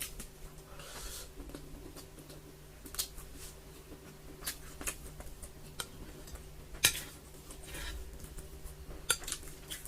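Eating utensils clicking and scraping against a plate or food container, in scattered sharp clicks, the loudest about seven seconds in and a quick cluster about nine seconds in.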